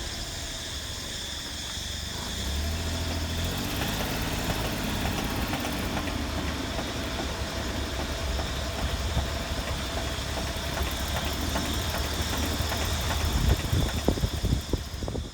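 Daihatsu Tanto L375S driving, engine and road noise steady and swelling a little after a couple of seconds, with scattered clicks through it, more of them near the end. The clicking is the rattling drive-shaft noise from a worn outer constant-velocity ball joint; the left outer boot is split and leaking grease, though the owner is not sure which side it comes from.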